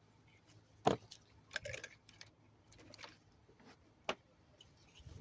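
Scattered small clicks and knocks with a short rattle, as of small hard parts being handled. The loudest click comes about a second in, and another sharp one just after four seconds.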